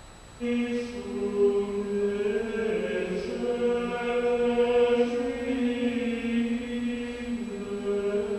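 Recorded Gregorian chant played over a lecture hall's speakers: voices singing long, slowly changing notes, starting about half a second in.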